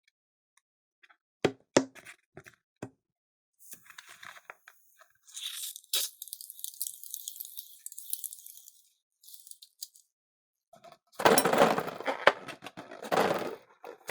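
Close-miked hand sounds of slime making: a few sharp taps, then several seconds of fine high crackling, and near the end a loud, dense stretch of noisy handling.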